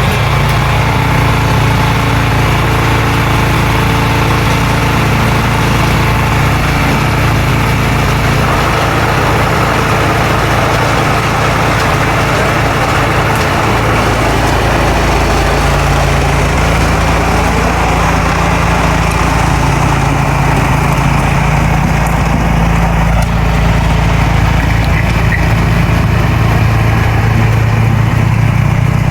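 Craftsman 30-inch snowblower engine running steadily after a restart, running well.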